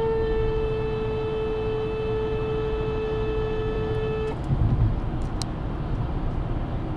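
Car horn held in one long, steady blast that cuts off about four seconds in, honking at a car that has merged in just ahead. Highway tyre and wind noise from inside the moving car runs underneath, with a brief low thump just after the horn stops.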